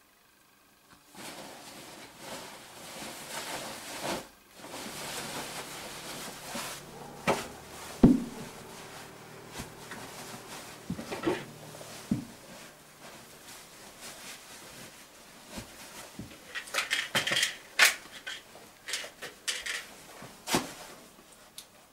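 Rustling and handling noise of a caving oversuit and rubber boots being pulled on, with scattered knocks and clicks from the gear; the loudest is a sharp knock about eight seconds in, and a quick run of clicks comes a little past the middle.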